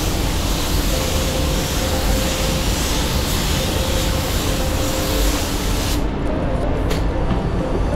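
Iwata WS-400 Series 2 spray gun hissing steadily as it sprays silver metallic base coat; the hiss cuts off suddenly about six seconds in. A steady low rumble runs underneath.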